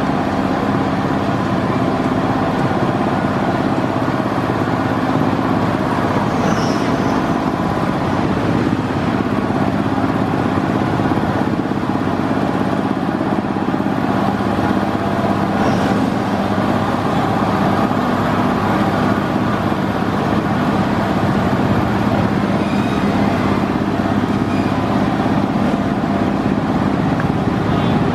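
A loud, steady engine drone runs throughout, like a motor vehicle idling.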